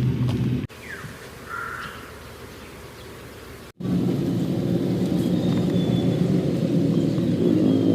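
An engine running with a steady low rumble; it stops abruptly under a second in, leaving a quieter stretch with a short high chirp, and returns abruptly about four seconds in.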